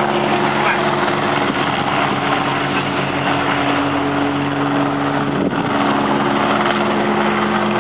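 Engines of the race convoy's team cars and escort motorcycles running as they pass slowly close by, a steady hum with a shift in pitch about two-thirds of the way through, over a constant noisy hiss.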